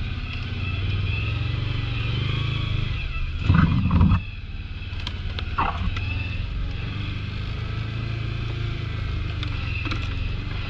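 A 1000 cc ATV engine running steadily while riding, with a brief loud low burst about three and a half seconds in and a few faint knocks.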